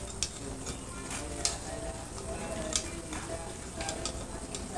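Coconut-husk embers crackling under grilling yellowfin tuna, with scattered sharp pops and sizzling.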